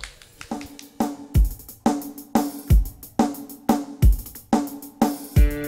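Live drum kit playing a steady beat on bass drum, snare and hi-hat. Near the end the band joins in with electric guitar and bass.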